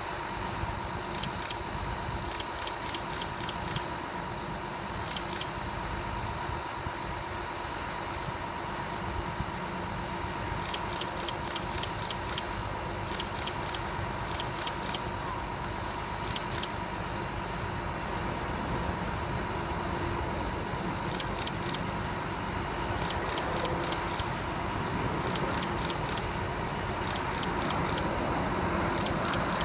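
Steady outdoor rumble of distant engines, mixing road traffic with a Boeing 787-9 on final approach, slowly growing louder as the airliner nears. A thin steady whine sits under it, and short runs of quick high ticks come and go.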